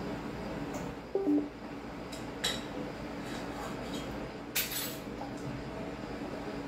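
A cooking utensil clinking and scraping against a stainless steel pot as it is stirred: a few sharp clinks and one short scrape over a steady background hum. About a second in there is a brief falling two-note sound.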